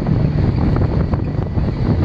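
Wind buffeting the microphone, over an outboard motor running steadily and water rushing past a small aluminium boat under way.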